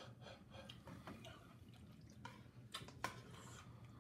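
Faint, scattered clicks and light scrapes of metal spoons against a paper cup and a plastic bowl of cereal in milk, with a few sharper clicks in the second half.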